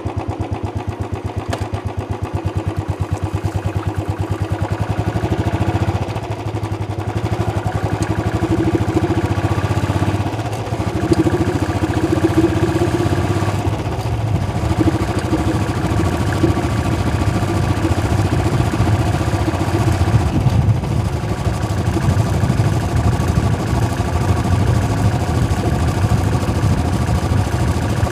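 Royal Enfield Bullet 350 EFI BS6's single-cylinder engine idling through its stock exhaust, just after starting, with a steady, even beat. The note shifts slightly a few times.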